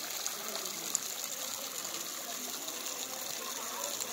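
Water from a tall, thin waterfall pouring down and splashing close by: a steady rushing hiss of falling spray.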